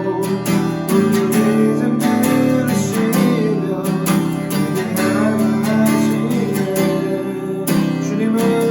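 Acoustic guitar strummed in a steady rhythm, accompanying a praise song.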